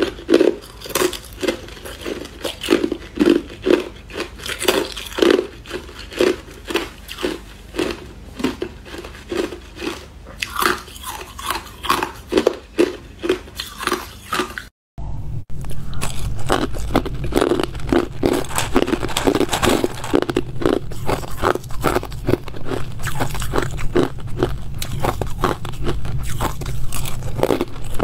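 Hard clear ice being bitten and chewed, with crisp crunches about twice a second. About halfway through there is a brief break, then denser, faster crunching of smaller ice pieces over a low steady hum.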